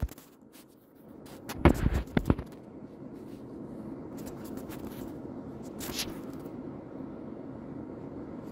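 A hand handling the camera close to the microphone: a few sharp knocks and rubs about two seconds in, then a steady low hum.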